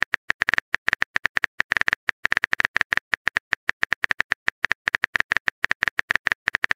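Keyboard typing sound effect: a fast, uneven run of short clicks, about ten a second.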